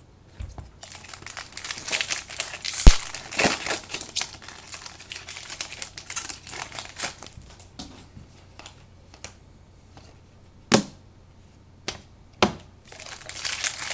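Plastic wrapping crinkling and rustling as trading cards and their packaging are handled, with one sharp knock a few seconds in and a couple of separate clicks near the end.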